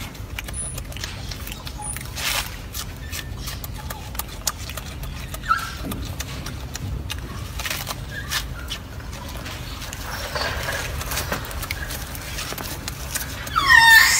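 Golden snub-nosed monkey chewing crisp lettuce leaves, heard as scattered short crunching clicks over a steady low hum. Near the end there is a loud call that falls sharply in pitch.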